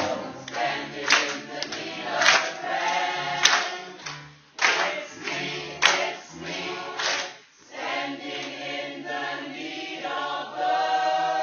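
A group of people singing together, with sharp hand claps about every second in the first half. Near the end the voices settle into one long held chord.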